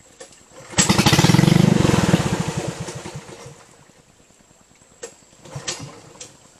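Small boat engine revving up sharply about a second in, with rapid even firing pulses, then easing back down over the next two seconds. A few light knocks near the end.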